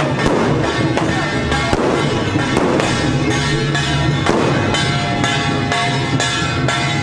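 Strings of firecrackers crackling densely, with music playing over them; the crackle is thickest in the first few seconds.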